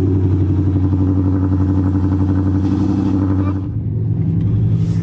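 Dodge Charger R/T's 5.7 Hemi V8 running at a steady fast idle just after a push-button start; about three and a half seconds in, the idle drops and settles to a lower note.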